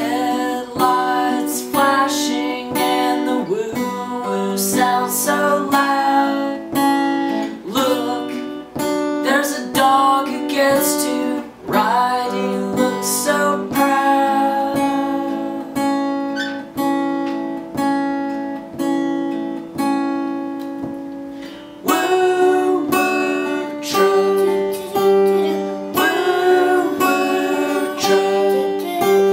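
Song performed on a strummed Epiphone acoustic guitar with a man and a young girl singing. The strumming comes in louder about three-quarters of the way through.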